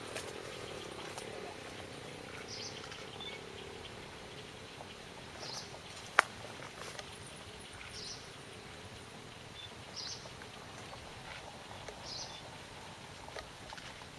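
Outdoor evening ambience with a small animal's short, high-pitched call repeating about every two to three seconds. One sharp click about six seconds in.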